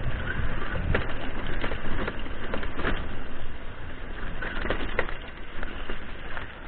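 Mountain bike rolling downhill over a loose, rocky dirt track: tyres crunching on gravel and the frame and handlebars rattling with irregular knocks over the stones.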